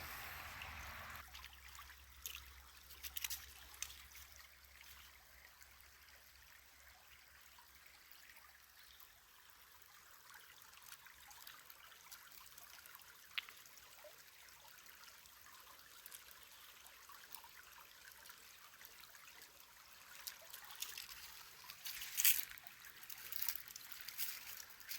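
Faint outdoor ambience: a steady, water-like hiss with scattered light clicks, and a short cluster of louder clicks and crackles near the end.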